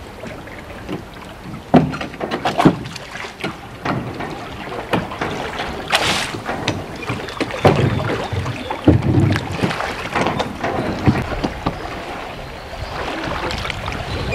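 Oars of a small rowboat being worked through shallow floodwater: irregular knocks and clunks of the oars in their oarlocks and splashes of the blades, over a steady wash of water and light wind on the microphone.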